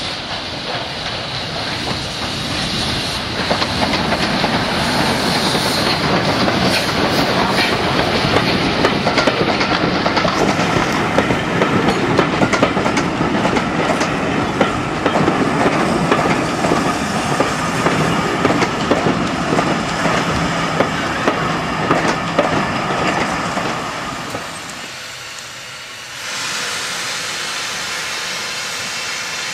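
Steam-hauled train running close past, its wheels clicking rapidly over the rail joints as the passenger coaches go by, then dying away. After a short lull, a standing steam locomotive gives off a steady hiss of escaping steam from the drain cocks at the front of its cylinders.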